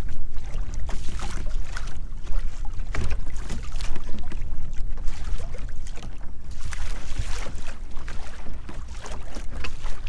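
Strong wind buffeting the microphone in uneven gusts, with choppy water lapping and slapping against a plastic kayak hull.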